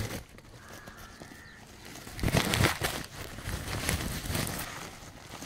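Crows cawing a few times, starting about two seconds in.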